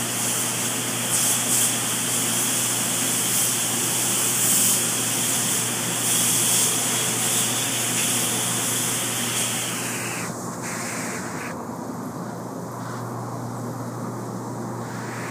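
Steady rushing air noise over a constant low mechanical hum, the sound of fans and air moving in a factory shed. About ten seconds in the high hiss drops away, leaving the hum and a softer rush.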